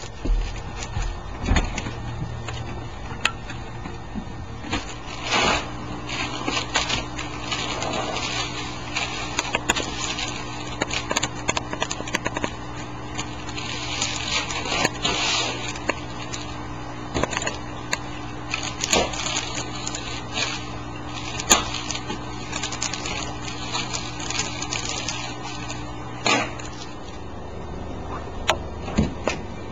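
Household handling noises: scattered knocks and clicks and the crinkle of cellophane-wrapped Peeps boxes being moved on a table, loudest about halfway through. A steady low hum runs underneath and stops about four seconds before the end.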